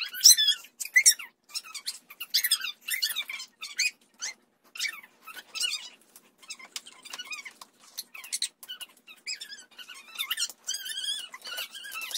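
High-pitched, squeaky children's chatter and squeals in many short wavering bursts, pitched up like sped-up footage.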